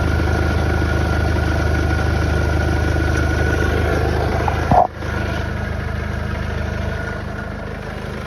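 Mercedes W176 A-Class OM651 four-cylinder diesel engine idling steadily. About five seconds in there is one short loud knock, after which the engine runs on a little quieter.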